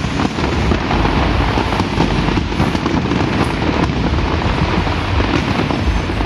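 Fireworks display going off continuously: a dense crackle and rumble of many overlapping bursts, with no single bang standing out.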